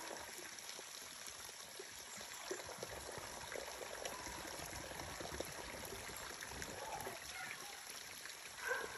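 Water trickling steadily out of a pipe into a small shallow pool, a faint, even splashing.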